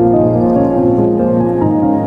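Gentle instrumental background music, with held notes that change every half second or so.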